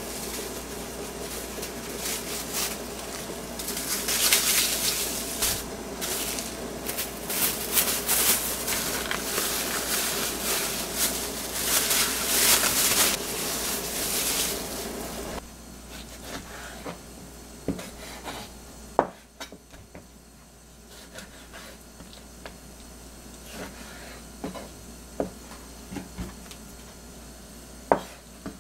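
Plastic cling film crinkling as it is worked loose from a tray of raw chicken thighs, a dense crackling rustle that stops suddenly about halfway through. After that, scattered sharp knocks of a knife on a plastic cutting board as the chicken is cut.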